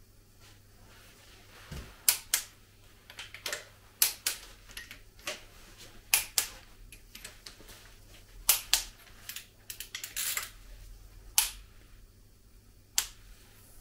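A hand ratchet wrench and steel tools clicking and clinking against the cylinder head and valve gear of a Volvo D67C diesel engine, in irregular sharp clicks, some single and some in quick runs.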